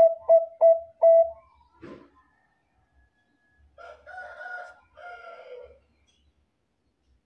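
Zebra dove (perkutut bangkok) cooing: a quick run of four short, clear coos in the first second, the end of a song phrase. A brief knock follows about two seconds in, then fainter, rougher calls for about two seconds near the middle.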